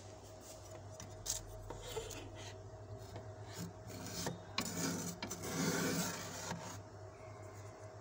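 Metal spoon scraping fresh, fluffy frost off the inside of a refrigerator. Short scraping strokes build to longer, louder scrapes past the middle, then ease off, over a steady low hum.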